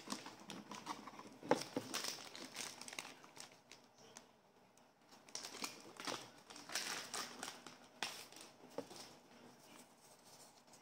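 Hands handling a plastic spring toy pistol: irregular rustling and crinkling with small clicks, the sharpest click about a second and a half in.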